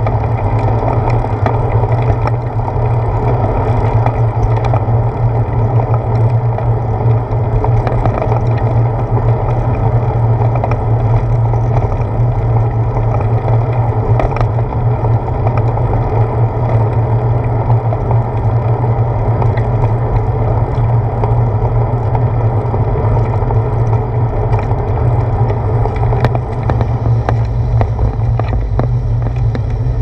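Steady wind and rolling noise from a bicycle ride on asphalt, picked up by a handlebar-mounted GoPro Hero 4: a continuous low rumble with no breaks.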